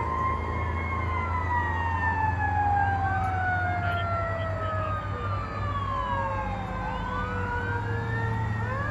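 Sirens of Holland Township fire rescue truck 1272 approaching on an emergency response. Several siren tones overlap: one falls slowly over several seconds while others wail up and down every few seconds, over a steady low rumble of engines and traffic.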